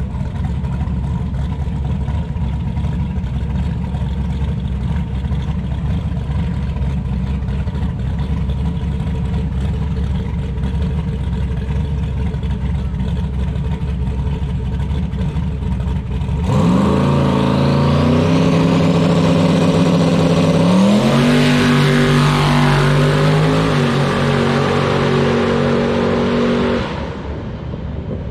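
Turbocharged Nissan 240Z drag car rumbling low and steady at the starting line. About sixteen seconds in it launches, suddenly much louder, and pulls hard down the track, its engine pitch climbing and stepping up through gear changes until it falls away near the end.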